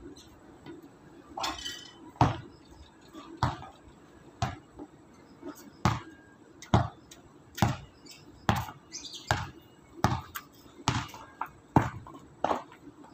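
Basketball being dribbled on a hard court: a steady run of sharp bounces, a little more than one a second.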